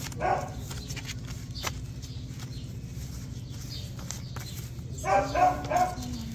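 A dog barking: a single bark just after the start, then three quick barks about five seconds in. A steady low hum runs underneath.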